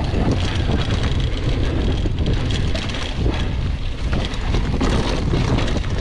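Mountain bike descending a dirt trail at speed: rumbling wind buffeting on the microphone over tyres rolling on dirt, with constant rattling clatter from the bike over the bumps.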